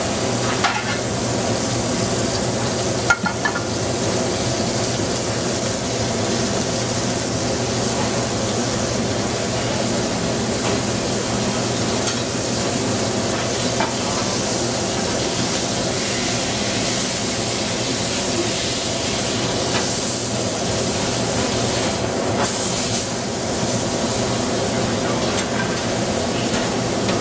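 Stuffed Angus beef patties searing in clarified butter in a pan, sizzling steadily over a constant hum, with a few sharp clicks about three seconds in.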